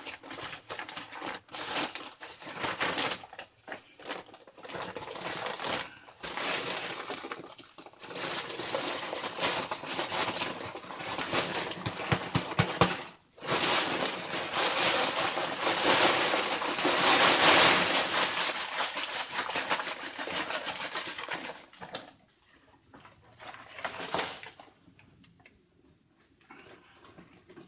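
Dry concrete mix poured from a bag and scraped into place, a rough hiss with scraping and knocking that is loudest a little past halfway and dies down near the end.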